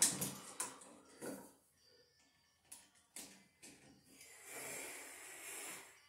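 Small clicks and taps of hand tools working wires and switches in a metal wall switch box, several separate knocks in the first few seconds. A breathy hiss lasts about a second and a half near the end.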